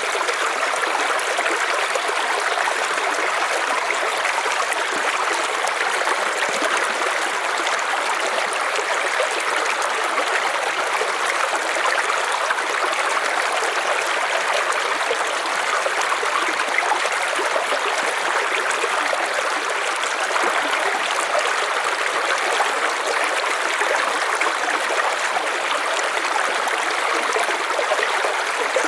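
River water running steadily over stones, a continuous even rush.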